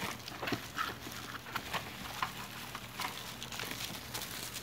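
Scattered rustles, light taps and clicks of paper and a cardboard box being handled, over a faint low hum.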